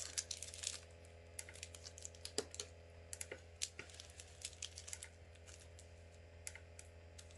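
Makeup brushes being handled: scattered light clicks and taps, a few a second, over a low steady hum.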